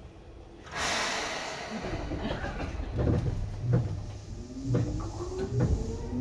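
Seibu 2000-series electric train moving off, heard near its line breaker. A sudden burst of air hiss is followed by a run of low clunks, then a motor whine that rises steadily in pitch as the train gathers speed.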